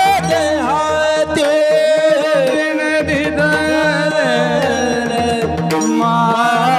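Marathi bhajan: a singer draws out a wordless, ornamented melodic line that glides up and down in pitch. Mridang drumming and steady held accompaniment notes sound under it.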